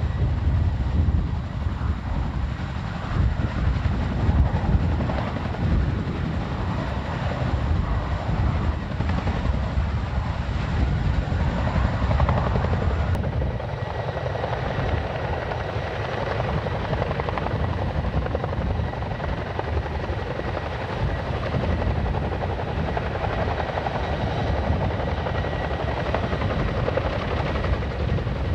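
Boeing CH-47 Chinook tandem-rotor helicopter hovering low and lifting off, its twin rotors beating steadily over the whine of the turbines.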